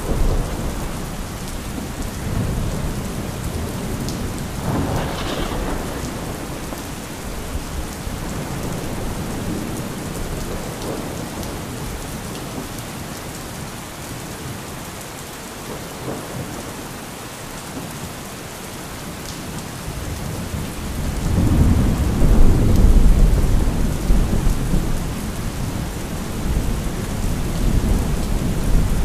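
Thunderstorm: steady rain with rolling thunder. There is a low rumble about five seconds in, and a louder, longer rumble about three-quarters of the way through.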